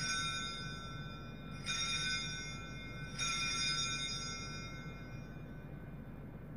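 Altar bells rung three times, about a second and a half apart, each ring sounding high and bright and fading out. The bells mark the elevation of the consecrated host at the consecration of the Mass.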